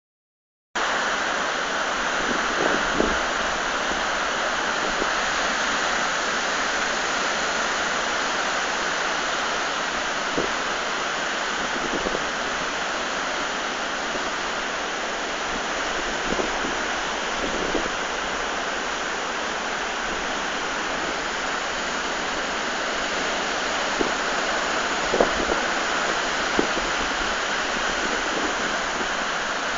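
Storm surf: heavy waves breaking on a rocky shore as a steady rush of water, with several brief louder crashes. It begins about a second in.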